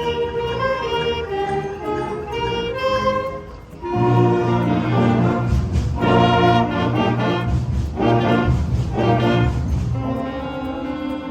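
Elementary school wind band playing: a brass-led melody, then, after a brief drop about four seconds in, loud accented full-band chords, easing to softer held notes near the end.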